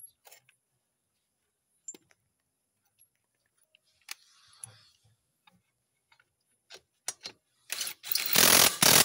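Scattered clinks and knocks of hand tools on metal, then a cordless impact driver runs on the motorcycle exhaust pipe's mounting bolt: a couple of quick blips, then a loud run of just over a second near the end.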